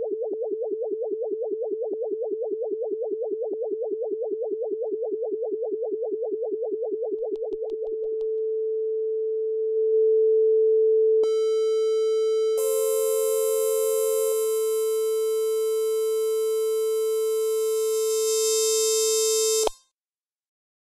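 Simple electronic synthesizer tones. A single pitched tone pulses about five times a second, then holds steady. Higher tones are layered on about halfway through, building a dense, buzzy chord, and everything cuts off suddenly about a second before the end.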